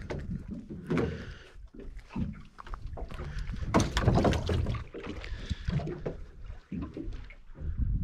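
Water lapping against the hull of a drifting fishing boat with its motor off, with wind rumble and irregular knocks and clatter.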